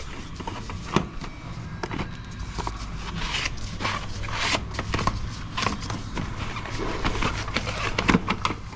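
Irregular clicks, taps and knocks of a filter element being handled and pushed into its housing on a DD15 diesel's fuel/water separator, with some rustling over a steady low hum. The element is not sitting right at first and has to be worked into place.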